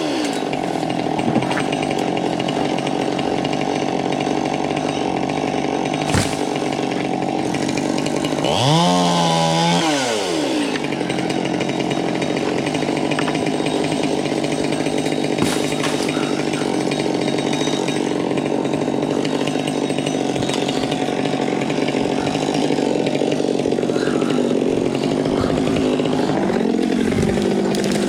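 Chainsaw engine running steadily, with one rev that rises and falls about nine seconds in.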